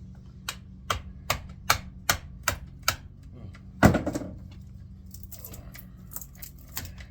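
Seven light, evenly spaced metal-on-metal taps, about two and a half a second, from a hammer striking a screwdriver wedged into a speed reducer motor to drive out its magnetic armature. They are followed about four seconds in by one much heavier blow that rings briefly, then a few light scraping clicks.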